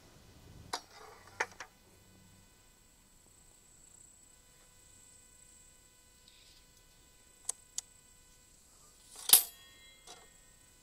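A few scattered clicks and knocks from handling a board and tools at a miter saw that is not running, the loudest a sharp knock about nine seconds in. A faint steady high whine sits underneath.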